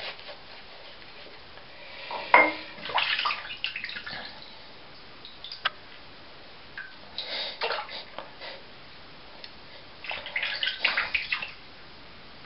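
Shaving brush working lather over the face, in three bursts of brushing of a second or two each, about two, seven and ten seconds in.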